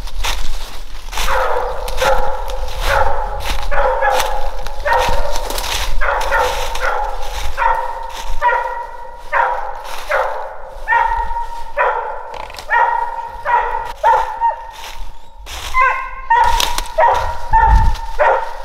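Walker coonhound barking at a tree in a steady run of chop barks, about three every two seconds: the tree bark of a hound that has treed her quarry.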